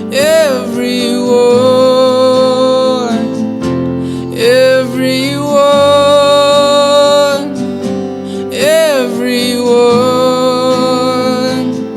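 Worship song with acoustic guitar accompaniment: a voice sings "everyone" three times in long held notes, each phrase opening with a quick rise and fall in pitch.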